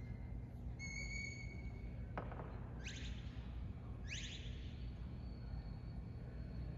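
Sheepdog handler's whistle commands to a working dog: a short held high note about a second in, then two quick downward-sliding whistles around three and four seconds, over a steady low background hum.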